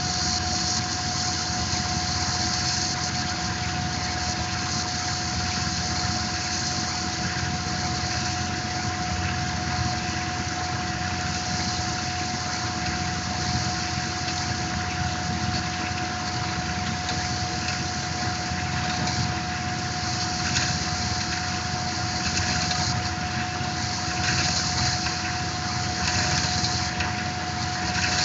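Tormach PCNC 1100 CNC mill cutting a pocket in aluminium with a small end mill: a steady whine from the spindle and cut over the steady splash of flood coolant.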